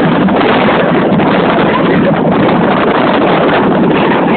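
Loud, steady rush of wind on the microphone with the rumble of the De Bob bobsled roller coaster's car speeding along its trough.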